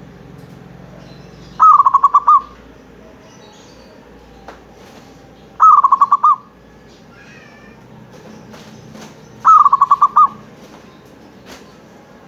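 Zebra dove (perkutut) singing three cooing phrases, about four seconds apart. Each phrase is a quick run of rolling notes that starts a little higher and drops slightly, lasting under a second.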